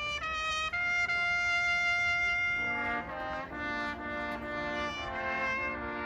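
Traditional Austrian hunting music played on brass horns: several horns sound together in chords, with a long held chord about a second in, then a run of shorter chords that change every half second or so.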